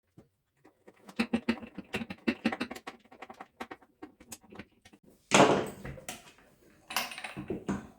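A screw being driven by hand with a screwdriver: a quick run of small clicks and scratches, then a louder scrape about five seconds in, and a few more clicks near the end.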